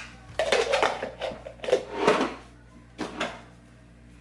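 Kitchen clatter: a quick run of knocks and rattles of dishes and containers being handled, then two more short knocks about three seconds in.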